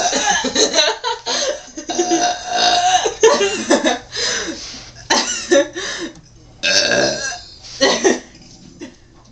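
A girl burping on purpose: a long, loud belch at the start followed by a string of shorter belches with brief gaps, the last about eight seconds in.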